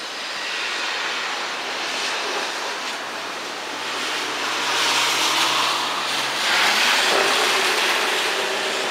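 Steady rushing hiss of rain and wet-road traffic, swelling about midway as a vehicle goes by with a low engine hum.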